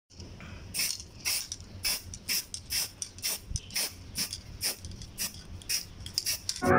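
Aerosol can of black spray paint hissing in short bursts, about two a second, as it coats a scooter's grab handle.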